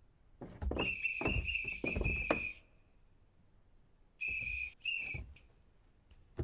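Cartoon sound effect of whistle-like squeaks, each paired with a soft bump: four in quick succession, then a pause and two more. The squeaks are steady in pitch.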